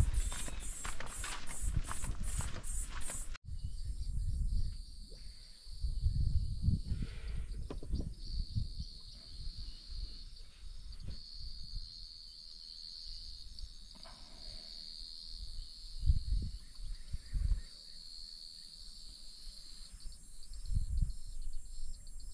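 Footsteps on a path for the first three seconds or so, then a steady, high-pitched chirring of insects that runs on, with scattered low thuds underneath.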